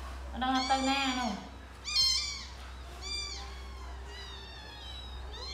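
Tiny kitten meowing over and over, high arching cries about once a second. The first cry overlaps a longer, lower call.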